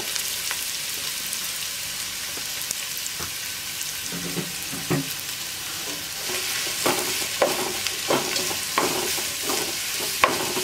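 Sliced onions sizzling in hot cooking oil in a non-stick pot, stirred with a spatula that scrapes and knocks against the pan. The strokes come about twice a second from about halfway through.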